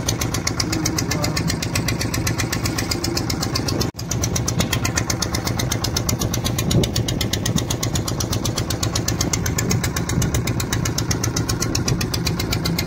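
Fishing boat's engine running steadily with a fast, even knocking beat, as the boat trolls. The sound cuts out briefly about four seconds in.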